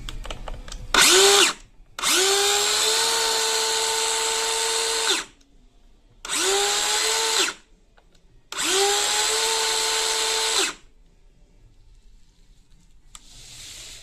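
Makita KS511DZ cordless dust-collecting circular saw motor triggered four times. Each run spins up quickly to a steady high whine and cuts off abruptly: first a short blip, then runs of about three seconds, one second and two seconds.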